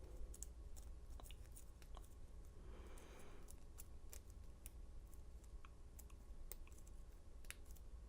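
Faint, scattered metallic clicks of lock picks and a tension wrench working in the keyway of an American Lock 700 padlock, with a soft scraping about three seconds in.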